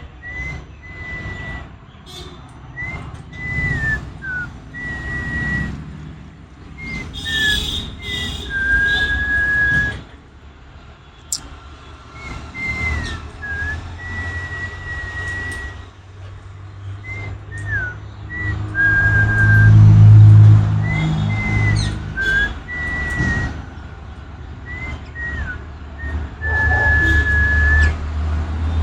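Repeated clear whistling: short up-and-down glides alternating with held notes of about a second, over a low rumble that swells loudest about two-thirds of the way through.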